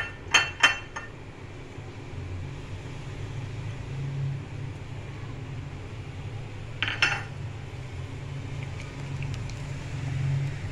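Silicone spatula stirring milk powder into milk and vermicelli in a steel pot, with a few sharp clinks of utensil on pot at the start and one ringing clink about seven seconds in.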